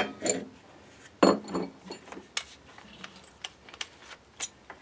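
Scattered light clinks and knocks of hard objects being handled at a workbench, with a sharper knock a little over a second in and a few more near the end.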